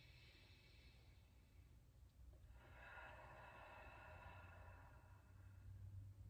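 A person breathing out slowly and faintly for about three seconds, starting a couple of seconds in; otherwise near silence.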